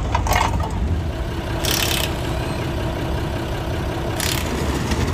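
Banger race cars' engines running, a steady low rumble, with two short bursts of hiss about two and four seconds in.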